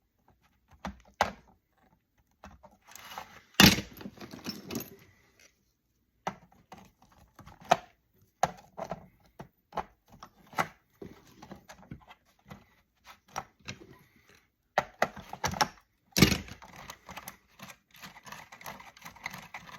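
Sheet-metal parts of a satellite TV receiver and hand tools clicking, scraping and clattering as the box is taken apart by hand, in irregular bursts with a sharp knock about three and a half seconds in and a busy clatter near the end.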